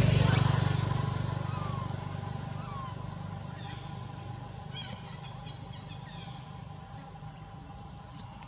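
A motor vehicle engine passing close by, loudest at the start and fading away over the next two seconds. Faint short falling chirps and a faint steady high tone continue behind it.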